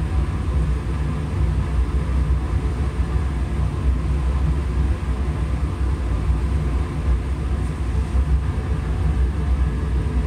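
Steady low rumble of laboratory ventilation, even and unbroken throughout.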